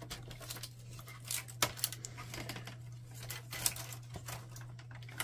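Scattered light clicks and taps of the plastic inner parts of a Canon PIXMA TS5120 printer being handled while a retaining clip is sought, over a steady low hum.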